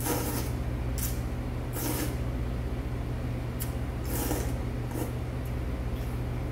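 Person slurping cold milmyeon wheat noodles out of a bowl of broth: several short sucking slurps, roughly a second apart, over a steady low hum.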